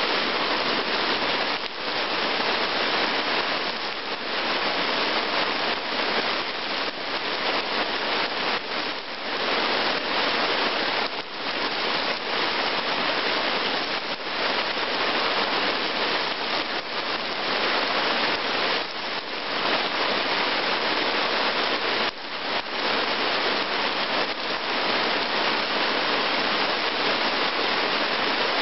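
Rain falling steadily onto wet ground and puddles, a dense, even hiss.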